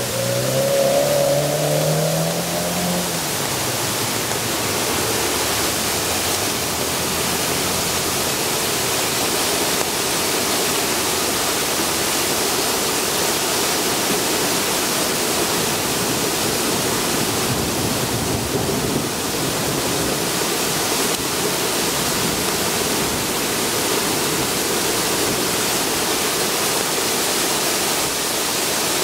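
Stormwater runoff rushing and splashing down a concrete stairway and its drainage channel, a steady loud noise of fast-flowing water. In the first few seconds a car passes on the wet road, its engine rising in pitch.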